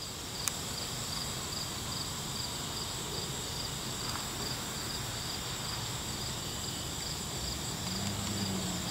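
Crickets chirping outdoors: a steady high trill with a regular pulsing chirp a little lower.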